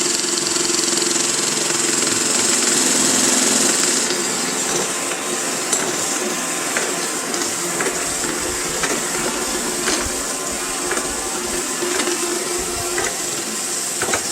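iRobot Roomba i7 robot vacuum running with its side brush off: a steady motor and suction hiss with a hum. From about five seconds in there are scattered clicks as it goes over tile. Under them sits a low rumble from the back of the robot that the owner finds louder than it should be, still there with a brand-new wheel fitted.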